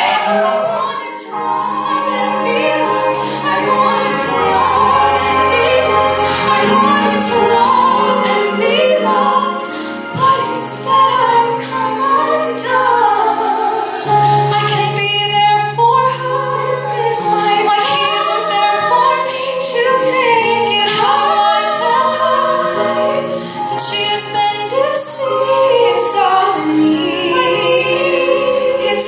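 Two women singing a musical-theatre duet together over sustained keyboard chords.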